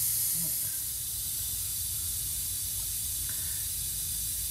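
Steady hiss of compressed air escaping from a leaking parking-brake hose on the coach's air-brake system, the leak at the hose rather than just its fitting.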